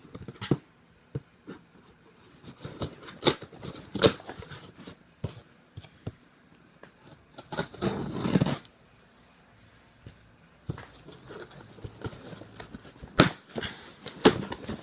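A shipping box being opened and its packaging handled: scattered clicks and knocks, a rustling, tearing burst about eight seconds in, and two sharp knocks near the end.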